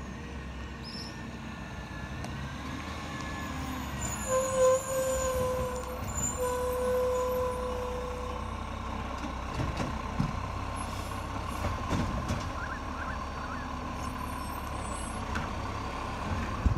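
Garbage truck approaching, its diesel engine running with a steady low rumble, and a long steady squeal that sets in about four seconds in and holds for several seconds.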